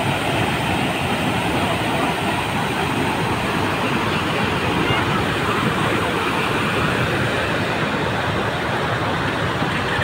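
Lake floodwater pouring over a stepped overflow weir and rushing down the channel below: a steady, unbroken rush of white water.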